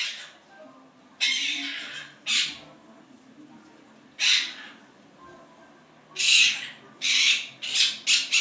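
Quaker parrot (monk parakeet) giving about seven short, harsh squawks, the last four in quick succession near the end.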